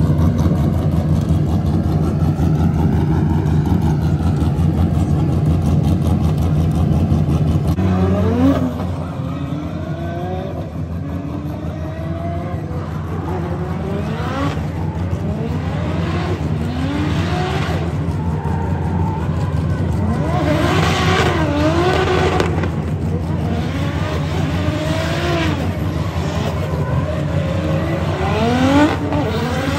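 Car engines idling with a steady low hum. About eight seconds in this gives way to a drift car's engine revving up and down over and over, with its tyres screeching as it slides.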